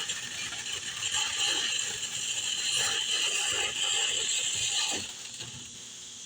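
Lit firework fuse hissing and sputtering with fine, rapid crackling ticks as it burns down, dying away about five seconds in.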